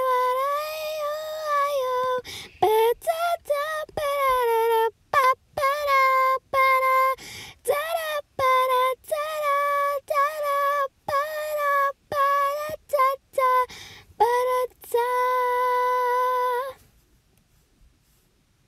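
A high female voice singing a wordless tune on repeated "da" syllables, in short notes with brief breaks between them. It ends on a long held note about two seconds before the end.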